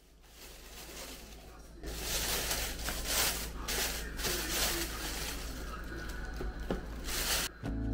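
Thin plastic carrier bag rustling and crinkling as a cardboard cake box is pulled out of it, faint at first and louder from about two seconds in.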